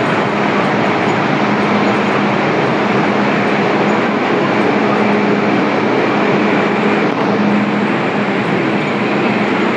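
MTR Island Line M-Train running on the track: a steady rail rumble with a constant low hum.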